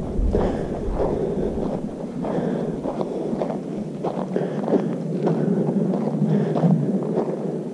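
Footsteps of a hiker walking on a dry dirt trail at a steady pace, about two steps a second. Wind buffets the microphone, most strongly in the first second.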